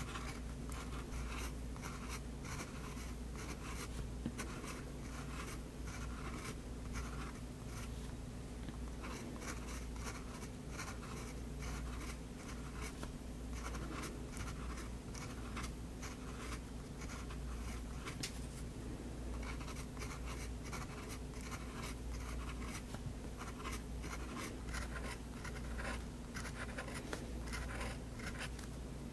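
Extra-fine nib of a Faber-Castell Hexo fountain pen scratching on drawing paper in many short, quick strokes, several a second, as it draws rows of small curved fish scales.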